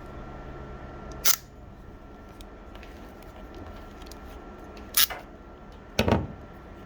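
Three short sharp clicks, about a second, five seconds and six seconds in, the last with a dull knock, from handling the cable and tools, over a faint steady hum.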